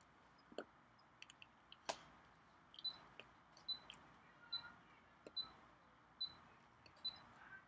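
Near silence broken by faint, irregular clicks and soft taps, about a dozen, from a person signing in sign language: hands meeting and mouth movements.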